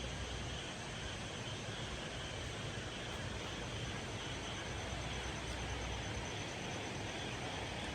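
Steady outdoor ambience: an even wash of noise over a low rumble, with a faint high-pitched hum like insects on top.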